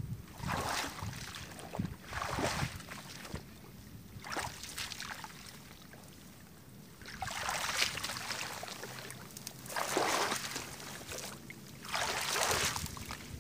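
Water splashing and sloshing, with reeds rustling, in about six separate bursts of a second or so, as a person wades and moves in shallow marsh water.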